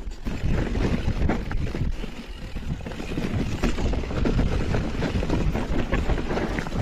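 Mountain bike riding downhill over a rough, stony dirt trail: a continuous rumble of tyres on loose ground, full of small knocks and rattles from the bike jolting over bumps.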